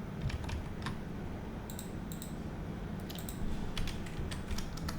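Typing on a computer keyboard: a few separate key clicks, then a quicker run of keystrokes from about three seconds in, over a steady low hum.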